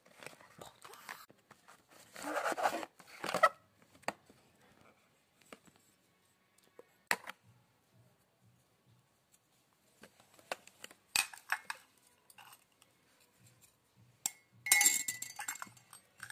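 A white ceramic cup, saucer and spoon being handled out of plastic-wrapped packaging: rustling of the packaging and scattered sharp ceramic clinks, with a louder cluster of clinks and a brief ring near the end.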